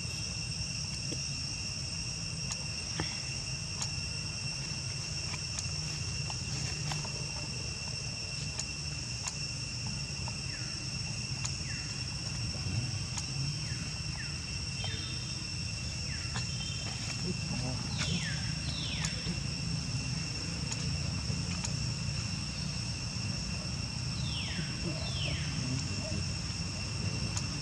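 Steady outdoor insect drone, two high held tones, over a low rumble. A few short, quick falling squeaks come through in the second half, a pair of them twice near the end.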